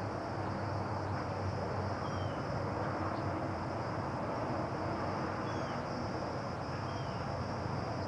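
Outdoor ambience: a steady hiss with a low rumble under it and a constant high-pitched whine, with three faint, short falling chirps from a small bird spread through it.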